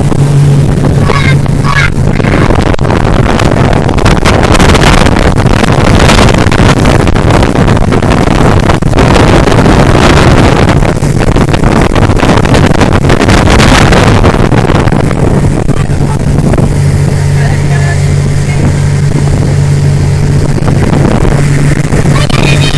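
Motorboat engine running with a steady low hum under a loud rush of wind and water noise, which is heaviest in the middle and eases after about fifteen seconds.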